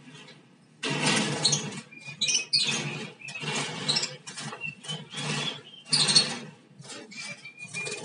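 Lovebirds flapping about in a wire cage in repeated bursts starting about a second in, mixed with the rustle of a cloth catching net, with short high chirps.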